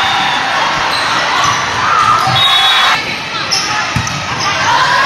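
Busy volleyball gym: players' and spectators' voices, with a volleyball thumping a few times, the sharpest hit about four seconds in.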